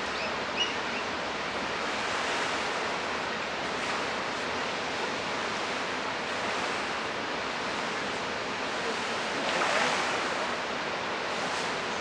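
Rhine Falls: a steady, even rush of water pouring over the falls, swelling slightly about ten seconds in. A brief high chirp sounds about half a second in.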